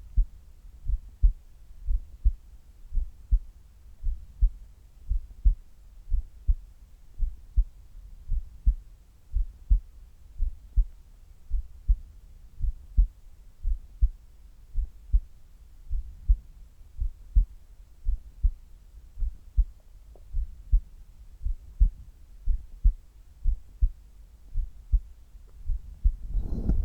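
A person's heart beating at rest, heard close up: steady lub-dub double beats, about one a second. This is the resting heart rate before exercise.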